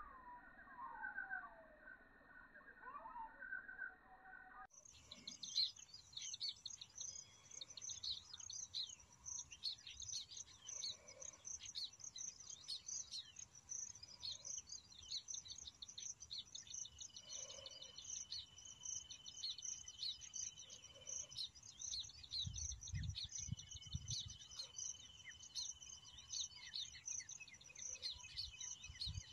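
A flock of baya weavers chattering, a dense, continuous stream of rapid, high chirps from many birds, with a steady high note drawn out several times in the second half. The first few seconds are a muffled, separate snippet with a few gliding notes before the chorus starts abruptly.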